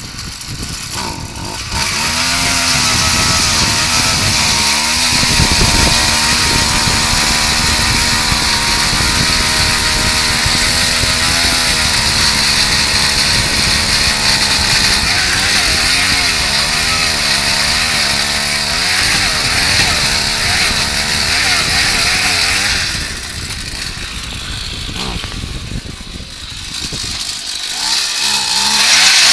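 Gas-powered ice auger's small engine running under load as the auger bit drills through lake ice, its pitch wavering partway through. The engine stops a little over 20 seconds in.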